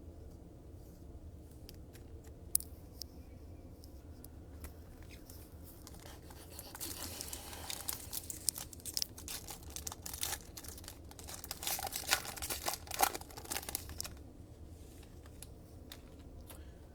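A foil trading card pack wrapper being torn open and crinkled by hand, the loudest crackling coming in the middle, with light card-handling clicks before it.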